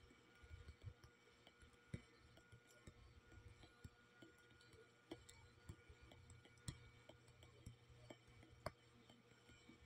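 Faint, scattered light taps of a fingertip on a phone touchscreen, irregular and a second or so apart, over a low steady hum.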